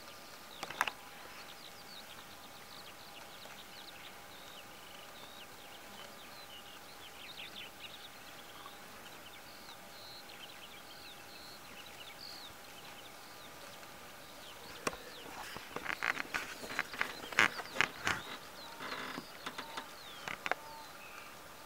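Quiet pasture with faint bird chirps. From about two-thirds of the way in comes a run of short, crisp tearing sounds from deer stags cropping grass close by.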